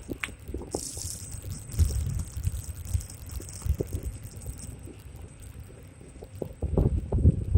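Ride noise from a Xiaomi M365 electric scooter on a wet road: wind buffeting the microphone, with irregular low thumps and rattles from bumps, heaviest near the end. A hiss of the tyres through water runs from about one second to four and a half seconds in.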